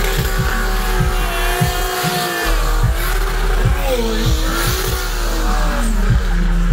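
Side-by-side UTV with a billet-block 2JZ inline-six held at high revs during a burnout, the engine pitch swinging up and down as the throttle works, dipping around four seconds in and again near six seconds, over the noise of spinning tyres.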